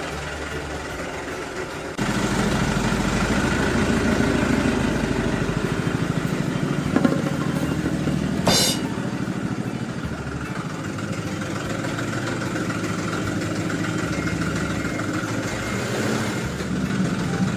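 An engine running steadily, the sound of a toy construction truck's engine, growing abruptly louder about two seconds in, with one short sharp clank partway through.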